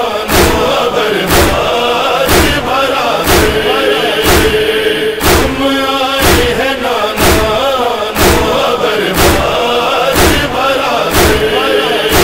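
Noha: a chorus chanting a lament over heavy, even chest-beating (matam) thumps, about one a second.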